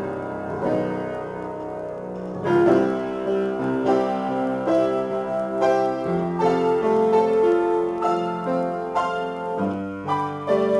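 Upright piano played solo in a free improvisation: a held chord fades for about two seconds, then new chords come in strongly with a moving melody over them.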